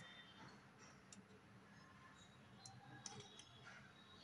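Faint, scattered clicks of a spoon knocking against a steel bowl as thick dosa batter is stirred, over near silence.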